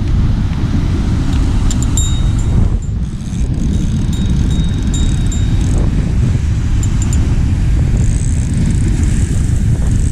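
Strong wind buffeting the microphone: a loud, steady low rumble with a few faint clicks.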